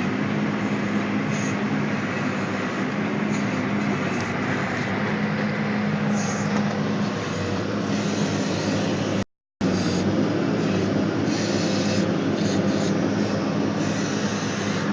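Backhoe's diesel engine running steadily with a constant droning hum. The sound cuts out completely for a split second about nine seconds in.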